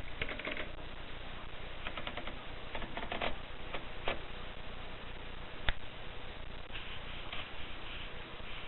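Mercedes portable typewriter being typed on: keys clacking in short irregular runs, with one sharper single clack about two-thirds through.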